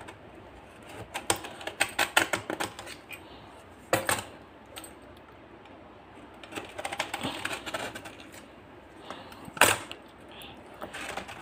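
A knife blade scraping and clicking against the rim of a metal cake tin as it is run round the edge to loosen a baked cake. The sound comes as runs of quick ticks and scrapes, with a sharper knock about four seconds in and another near the end.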